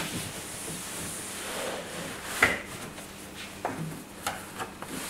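Cotton bedding rustling and sliding as a cot-bed bedding set is laid down over the mattress and smoothed by hand, with a sharp knock about two and a half seconds in and a few lighter knocks after it.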